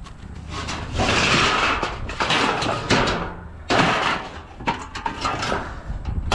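Scrap metal being rummaged and gathered by hand: rustling and scraping with several sharp knocks and clanks.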